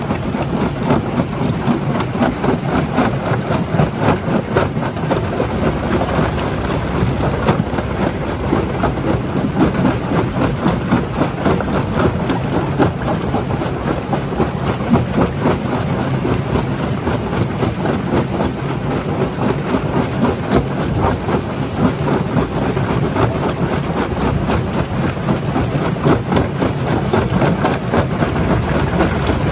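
Stone crusher running under load: a steady heavy machine din with dense, constant clattering and knocking of rock being broken.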